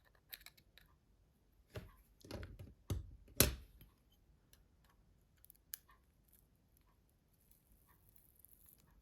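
Faint clicks and taps of small tools and phone parts being handled on a work surface, with a few louder knocks between about two and three and a half seconds in.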